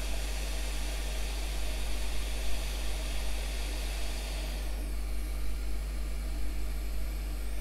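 Hot-air rework station blowing a steady hiss of hot air onto a circuit board to melt the solder of a small surface-mount part, with a constant low hum beneath. About halfway through, the hiss changes tone as its higher part drops away, then fills back in near the end.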